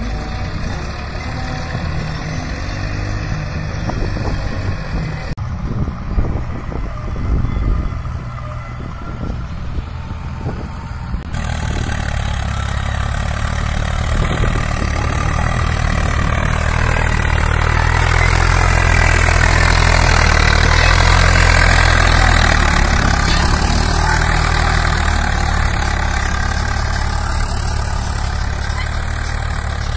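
Diesel tractor engines running under load as they drag soil-levelling scrapers, the sound changing abruptly at cuts about five and eleven seconds in. Past the middle the engine grows louder and its pitch rises and then falls, easing off near the end.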